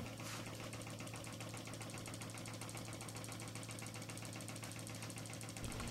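Small air-cooled hot-air Stirling engine fan running, its linkage making a fast, even, faint ticking over a low steady hum.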